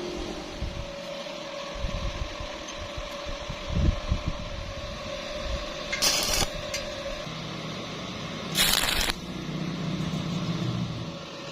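Two short bursts of stick-welding arc crackle, about six seconds in and again near nine seconds, over a steady hum with a few clanks of metal being handled.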